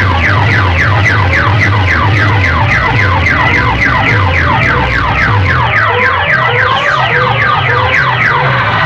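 Very loud electronic siren-like sound effect blasted through a bank of horn loudspeakers: rapid falling whoops, about three a second, over a pulsing bass beat. Near the end the whoops stop and steadier tones carry on.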